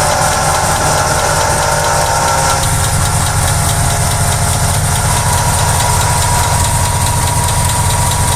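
Car engine running with a noisy water pump: its internal bearings are dry and worn. A thin, steady high tone sits over the engine sound.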